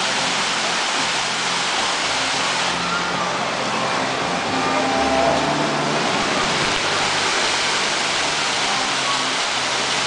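Fountain jets spraying and splashing down into a shallow pool, a steady hiss of falling water.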